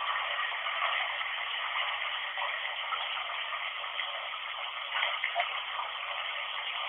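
Steady hiss of running water, thin and tinny in sound, with no clear voice in it.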